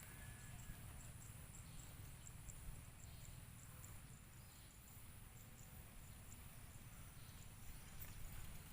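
Near silence: a faint steady hiss and low hum, with faint high ticks a few times a second in the first half.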